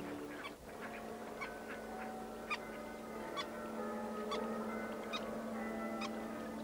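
Orchestral music: soft held chords over a steady low note, with a light chiming note struck about once a second.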